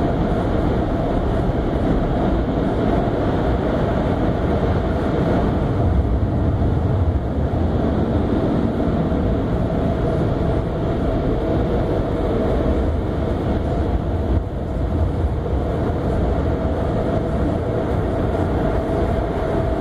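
Steady low rumble with a constant hum inside a car's cabin as the car idles and creeps forward, unchanged throughout apart from a brief dip about two thirds of the way in.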